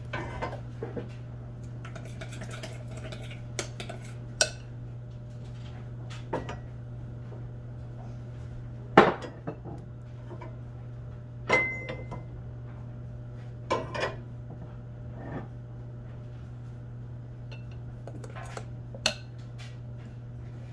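Wagner Sidney cast iron waffle iron being handled on a gas stove grate, its hinged plates lifted open and set down again: a string of separate metal clanks and scrapes, the loudest about nine seconds in, and one with a brief metallic ring a couple of seconds later. A steady low hum runs underneath.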